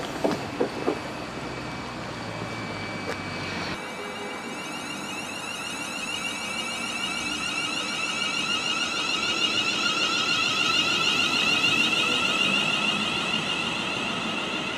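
Class 350 Desiro electric multiple unit moving along the platform. From about four seconds in its traction equipment gives a steady high whine with several tones, growing louder toward the middle and easing a little near the end.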